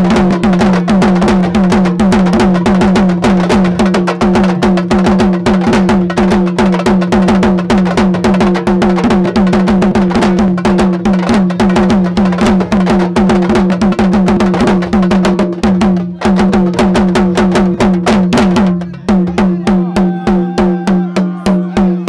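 Sabar drums played in a fast, driving rhythm of dense, rapid strokes. There is a brief break about nineteen seconds in, then the drumming resumes.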